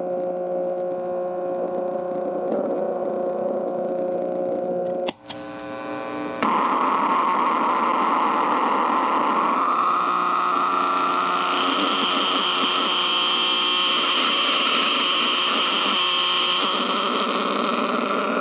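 Distorted electrical hum and noise from a Marshall mini-stack amp driven by a ProCo RAT and a Marshall Guv'nor distortion pedal, with the guitar strings muted so it is not guitar feedback: a steady buzzing drone with several tones. About five seconds in a click cuts it to a thinner buzz, then a louder, harsher noisy drone takes over, with a high whine coming in about halfway and dropping out near the end.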